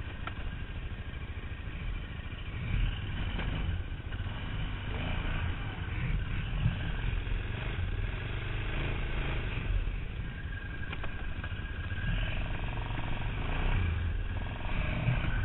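Arctic Cat ATV on Camoplast Tatou tracks being driven hard through deep snow: a continuous engine and drivetrain rumble whose level rises and falls as the throttle works.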